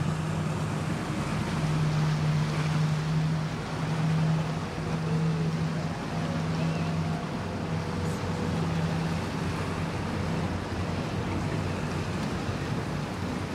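Low steady hum of boat engines over a constant wash of water and wind on the microphone; the hum pulses in roughly second-long stretches and fades out after about nine seconds.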